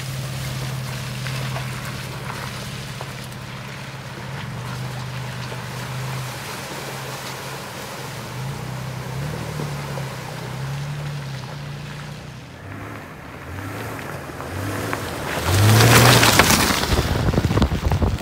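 A four-wheel-drive SUV's engine running steadily, revved up and down around the middle while driving through a muddy river crossing. About three seconds from the end, a loud rush of splashing water and mud drowns it out.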